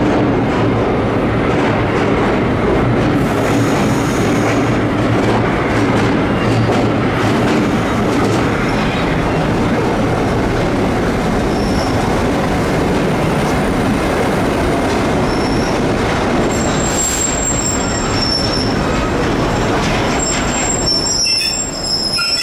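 Vintage 1930s R1-9 subway cars running on the rails with a steady, loud rumble of wheels. High-pitched wheel squeal comes in during the second half and is strongest near the end.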